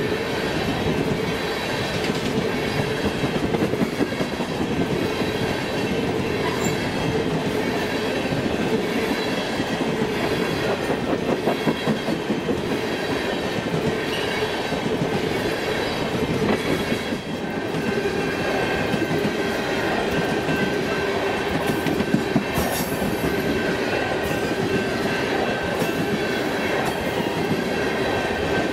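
Freight cars of a passing train rolling steadily on the rails, with a continuous wheel-on-rail rumble and clicking over the rail joints. Thin, held wheel squeal rides over it.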